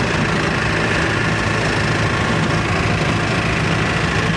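A vehicle engine running steadily with road noise, heard from inside the moving vehicle.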